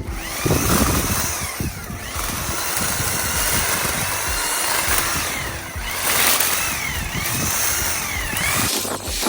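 Hedge trimmer running and cutting, its pitch dipping and rising several times.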